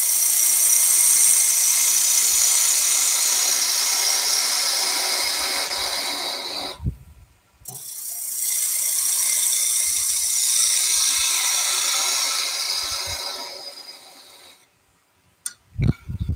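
Parting tool cutting into a spinning wood blank on a lathe: a steady, high scraping hiss of shavings coming off, in two long cuts of about six seconds each with a short break between, the second fading away. A couple of short low knocks near the end.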